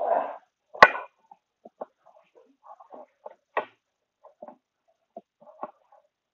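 Scattered clinks, knocks and rattles of hand tools and scrap metal parts being handled on a workbench, with one sharp knock a little under a second in.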